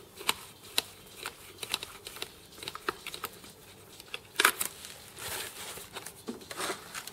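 Hands working on a plastic PTZ camera housing: scattered small clicks, taps and rustles of plastic parts, screws and cables being handled, with one louder scraping rustle about four and a half seconds in.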